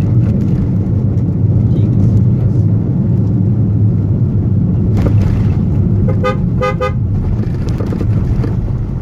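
Car driving on the road, heard from inside the cabin as a steady low rumble of engine and tyres. About six seconds in, a vehicle horn gives three short beeps in quick succession.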